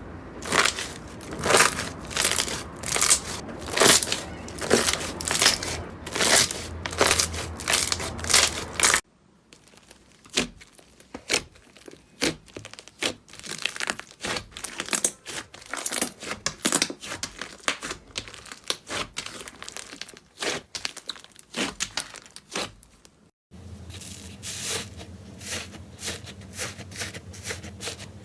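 Slime being squeezed and poked by hand, giving crackling, crinkly clicks and pops. The clicks come thick and fast at first, turn sparser and softer after a cut about a third of the way in, and pick up again after another cut near the end.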